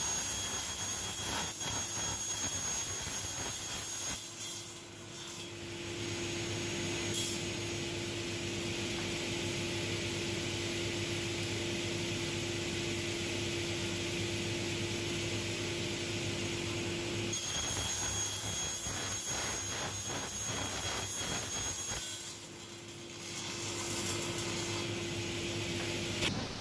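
Sliding-table panel saw running steadily, cutting 18 mm MDF. Two passes through the board add a rougher, high whining sound: one at the start for about four seconds, and one from about two-thirds of the way in for about five seconds. The loudness dips briefly after each pass.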